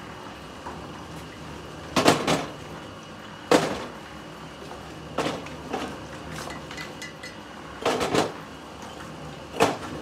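Manual construction work: irregular knocks and clatters of tools and materials being struck or set down. There are about six of them, some in quick pairs, and the loudest come about two seconds and three and a half seconds in.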